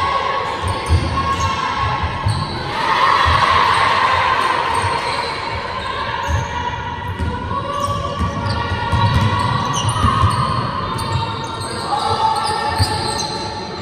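Basketball game on a wooden court in a large sports hall: a ball bouncing in repeated thuds, with players' voices and sharp shoe noises echoing through the hall.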